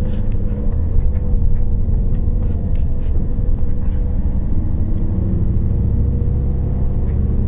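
Steady low rumble of a car driving, engine and road noise heard from inside the cabin, with a faint steady hum over it.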